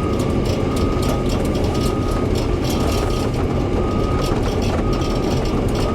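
Excavator diesel engine running while the machine tracks, with a travel alarm beeping about once a second and scattered clanks from the undercarriage.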